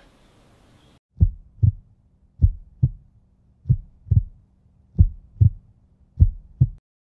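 Heartbeat sound effect: five lub-dub double thumps, one pair about every second and a quarter, starting about a second in over a faint low hum and stopping shortly before the end.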